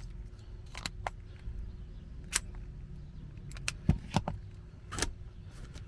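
Tools and small items being rummaged through in a tool bag: scattered clicks and knocks, about eight in all, with a couple of louder knocks about four seconds in, over a low steady rumble.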